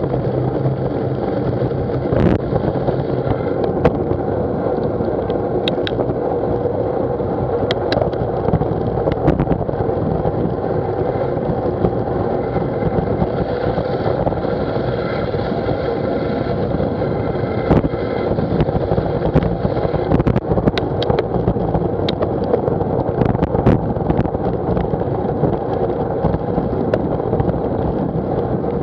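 Steady rushing of wind and road noise picked up by a bicycle-mounted Garmin VIRB action camera while riding, with scattered sharp knocks as the mount jolts over bumps in the road.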